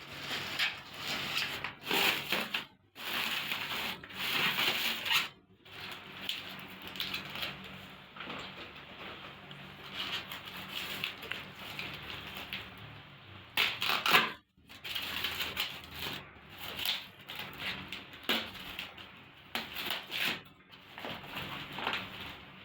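Packaging being handled and unpacked: irregular rustling and crinkling that breaks off abruptly a few times.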